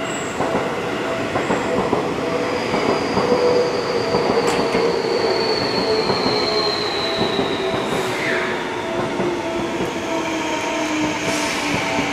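Seibu 30000-series electric train pulling out of a station: a steady running rumble, with the motor drive's whining tones drawn out and slowly gliding in pitch as it gets under way.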